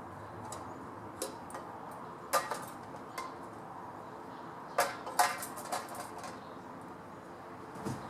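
A person climbing in a tree: scattered sharp knocks and snaps, about eight, the loudest two clusters around two and a half and five seconds in, over a steady background hiss.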